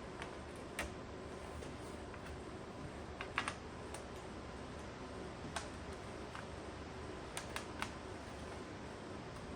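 Scattered small sharp clicks and taps of plastic Toshiba Tecra laptop parts being handled and fitted during reassembly, irregularly spaced, a few in quick clusters, over a steady low hiss.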